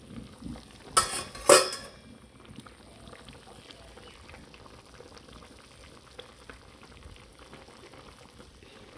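Cauliflower and potato curry simmering in an open wok, a steady crackle of small bubbles bursting. About a second in, two short loud clatters.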